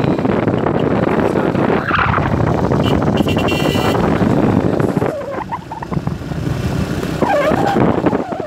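Wind rushing over the microphone with the running noise of a moving vehicle, a dense, steady roar. A brief high tone sounds a little after three seconds in, and the rush eases somewhat about five seconds in.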